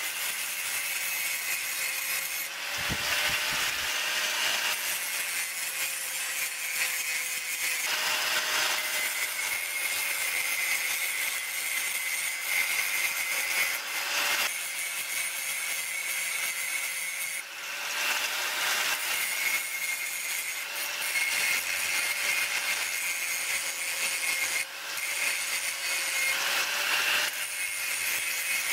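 Hitachi angle grinder with an abrasive disc grinding a welded steel part clamped in a vise, its motor running steadily under a harsh grinding noise that eases off briefly a few times.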